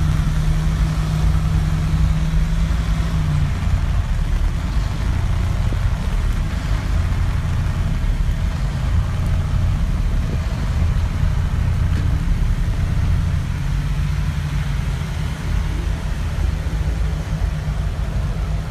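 Steady rain hiss over a heavy low rumble, with a sustained low hum in the first few seconds and again about two thirds of the way through.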